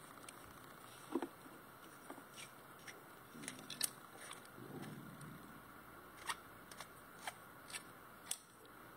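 Graco SG2 airless spray gun being worked by hand: faint, scattered metal clicks from its trigger and fittings, about ten over several seconds, with a soft rustle of handling in the middle.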